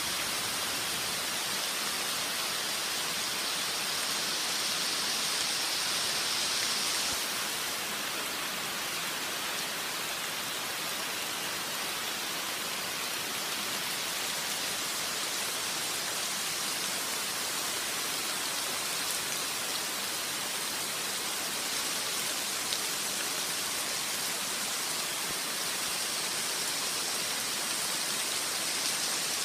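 Steady rain falling on jungle foliage and wet leaf litter, a dense even hiss; the high hiss eases slightly after about seven seconds.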